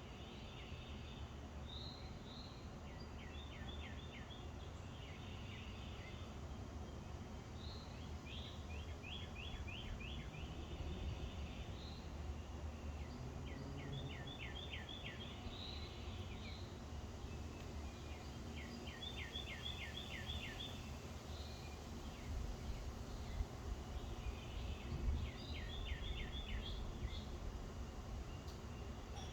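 A songbird singing, repeating a short phrase about every five seconds, each phrase a quick run of downward-sweeping notes with a few chirps around it. A steady low rumble runs underneath.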